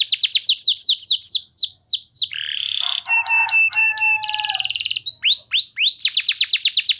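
Domestic canary singing: fast trills of repeated downward-sweeping notes, about seven a second, broken in the middle by a harsh buzzy note, a few short whistled notes and a quick buzzing roll, before the fast trills start again about five seconds in.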